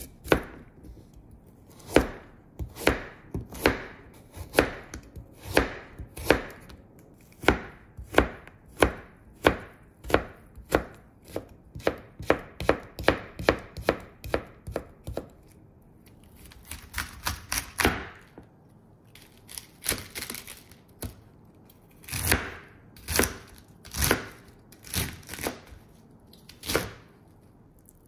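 Kitchen knife cutting a carrot on a cutting board: sharp knocks of the blade striking the board, at first spaced a second or so apart, then in quicker runs of several chops a second.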